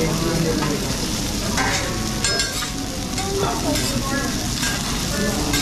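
Wagyu beef rolls and vegetables sizzling on a hot teppanyaki steel griddle, with the chef's metal spatulas scraping and clinking against the plate a few times.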